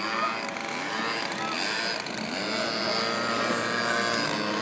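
Radio-controlled model seaplane flying overhead, its motor droning with a pitch that rises and falls as it manoeuvres.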